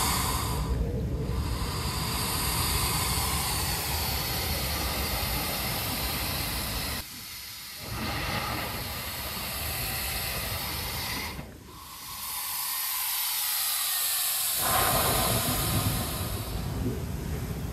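Seawater surging through a lava-rock blowhole and bursting out as spray: a steady rushing hiss over waves on the rocks. It falls away briefly about seven seconds in, and again for about three seconds past the middle, then builds back.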